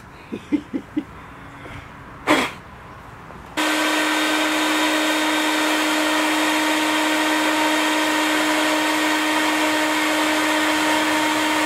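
Porter-Cable 3 1/4 horsepower router running at full speed, cutting a cove profile into solid-surface countertop material: a loud, steady, high whine. It starts abruptly about three and a half seconds in, after a few short faint chirps and a quick falling whistle.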